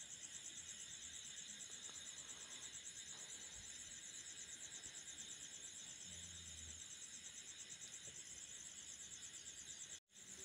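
Near silence, with faint crickets trilling steadily in a fast pulsing rhythm over a low background hiss. The sound cuts out completely for a moment near the end.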